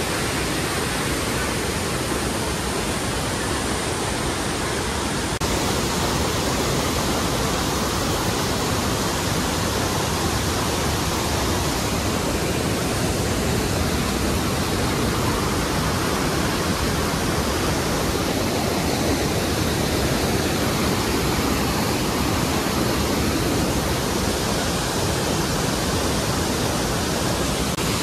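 Tall waterfall pouring down: a steady, loud rush of falling water that grows slightly louder about five seconds in.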